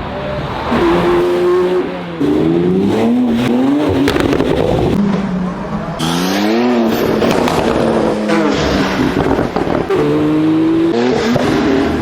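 Porsche sports car engine revving hard again and again, its pitch rising and falling with each blip of the throttle, with a few sharp exhaust crackles.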